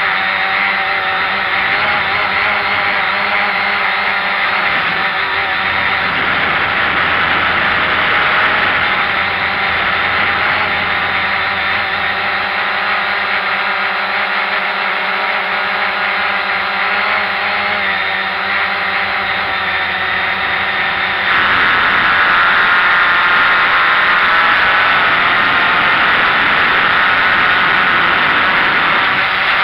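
Cheerson CX-20 quadcopter's brushless motors and propellers running steadily in flight, heard close up through the drone's onboard camera. About twenty seconds in, the sound steps up, louder and higher.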